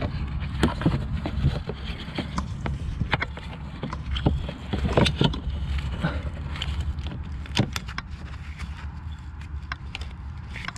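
Scattered sharp clicks and knocks of parts being handled and pushed together as a fitting is seated on a diesel fuel filter, over a steady low rumble.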